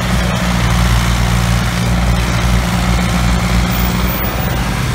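Massey Ferguson tractor diesel engines running hard under load, hauling a heavily loaded trolley through wet mud: a loud, steady, low engine drone.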